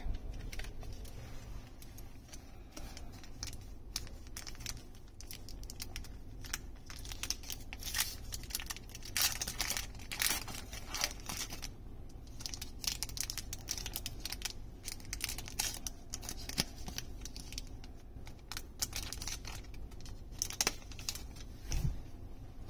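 Magic: The Gathering booster pack's foil wrapper crinkling and tearing as it is opened by hand, in an irregular run of short crackles, with a soft knock near the end.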